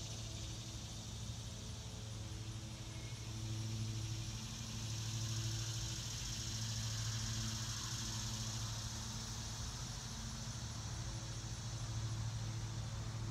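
Lawnmower engine running steadily with a low hum, under a high-pitched cicada chorus that swells louder a few seconds in and eases off later.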